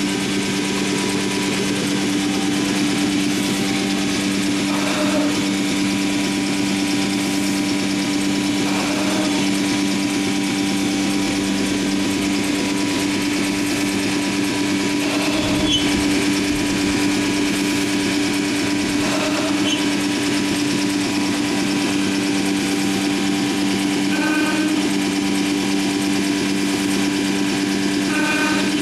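Anderson Stratos Pro CNC router running with a horizontal aggregate head fitted to its spindle, a steady machine hum over a hiss. Brief accents break through about every four to five seconds as it machines the door parts.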